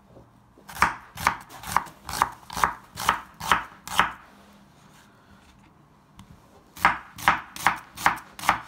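Kitchen knife slicing an onion on a bamboo cutting board: sharp chops about two a second, a pause of a couple of seconds in the middle, then another run of chops.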